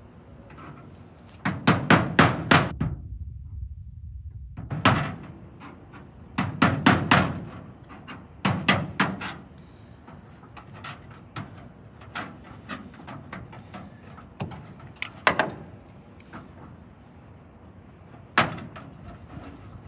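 Hammer striking a chisel to break away old solder holding a sheet-metal sign letter to its metal backing: quick runs of several sharp taps with pauses between, then lighter scattered taps and one more sharp knock near the end.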